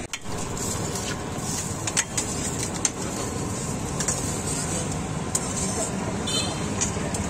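Steady background noise of a busy street-food stall, with a few sharp clinks of steel utensils and bowls on the griddle counter.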